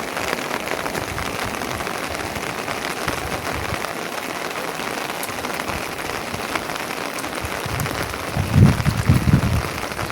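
Rain falling steadily on a surface, a dense patter of drops. About two seconds before the end, several loud low rumbling swells rise over it.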